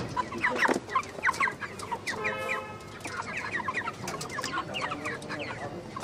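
A caged flock of white broiler chickens clucking and chirping, many short calls overlapping throughout, with one longer call of steady pitch a little past two seconds in.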